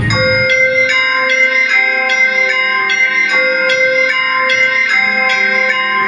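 Bell chimes in music played over the stage loudspeakers: a run of bell notes struck about two to three times a second, each one ringing on under the next.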